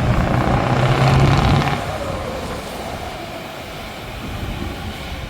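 Truck V8 engine with open exhaust pipes held at high revs, then let off about two seconds in, the sound dropping back and running on more quietly.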